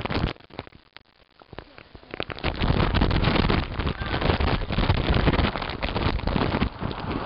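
Wet plastic slip 'n slide sheet hissing and crackling under a sliding rider, with wind buffeting the microphone. It drops away briefly just after the start, then comes back louder about two seconds in.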